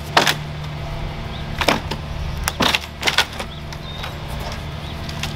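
Weathered wooden playset railing being pried apart by hand: several sharp cracks and knocks as the old wood and its fastenings give way, over a steady low hum.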